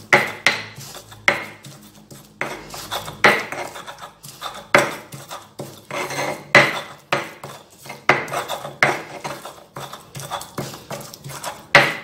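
Stone pestle knocking and grinding against a flat stone mortar (cobek and ulekan) as garlic and shrimp paste are crushed to a paste: uneven sharp knocks about once or twice a second, with gritty scraping between them.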